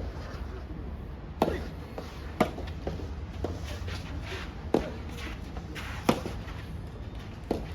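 Rubber soft tennis ball being hit back and forth in a rally: about five sharp pops of racket strikes and bounces, roughly a second or so apart, with fainter ticks between them.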